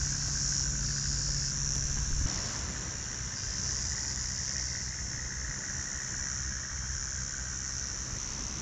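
Steady, high-pitched chorus of insects in the bush, with a low hum underneath that drops away about two seconds in.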